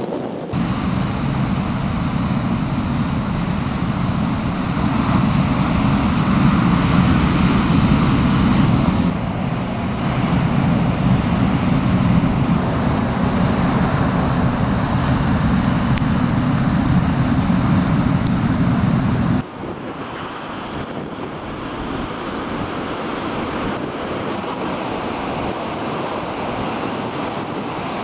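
Storm surf breaking and churning, with wind rumbling on the microphone. Around two-thirds of the way through, the heavy low rumble cuts off suddenly, leaving a steady wash of waves.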